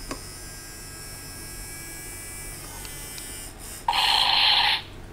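Motorized display turntable running with a steady electric hum and thin high whine. Near the end a loud, noisy burst of just under a second cuts in and stops abruptly.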